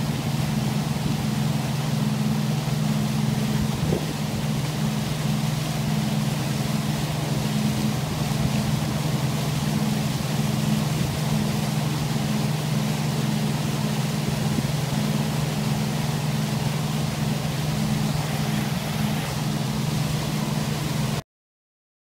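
Motorboat engine running steadily at cruising speed: a constant low drone with a steady hiss over it. It cuts off suddenly near the end.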